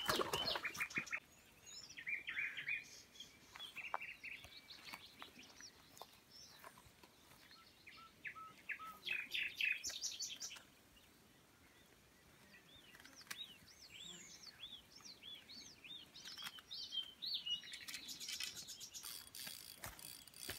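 Birds chirping and calling, several short high calls at a time, with a run of quickly repeated arched calls in the second half. A few scattered clicks and knocks come through as well.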